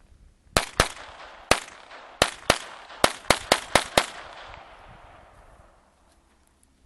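About ten gunshots fired in quick, uneven succession, each followed by a trailing echo that dies away after the last shot.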